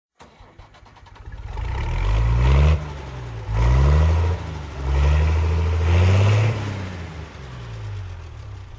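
Snowcat's diesel engine running and revving. Its pitch climbs three times, each time dropping back abruptly, then it settles to a lower, steadier speed.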